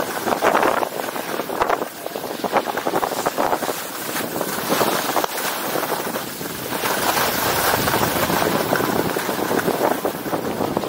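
Skis sliding and scraping over packed, groomed snow on a downhill run, with wind rushing over the camera microphone; the rush swells and eases as the turns go.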